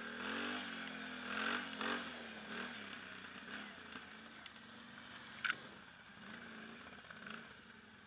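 Quad bike engine revving up and down as it pulls along a rough grass track, then running at a lower, steadier note, with rattles from the machine and one sharp knock about five and a half seconds in.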